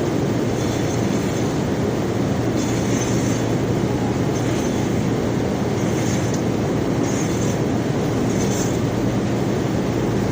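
Belt conveyor carrying rock, running with a steady rumble and low hum. Short, high scraping sounds come and go every second or so.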